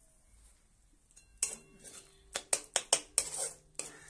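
A spatula scraping and knocking against a metal kadai while stirring frying masala paste, a run of sharp scrapes starting about a second and a half in.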